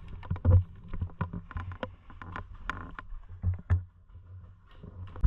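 Uneven footsteps on rough ground, with low thumps and scattered clicks and knocks of a player's gear as they move.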